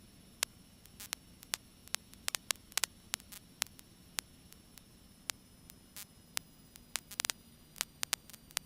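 Crackling static on the cockpit intercom audio: irregular sharp clicks and pops, some in quick clusters, over a faint steady low hum.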